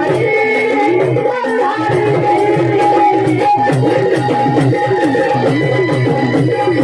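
Music from a Marathi devotional folk song: a repeating, wavering melody over steady drumming, with no sung words.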